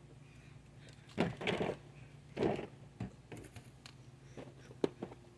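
Handling noise from work on a mower: two short scraping rustles about one and two and a half seconds in, then a few sharp clicks, over a faint steady hum.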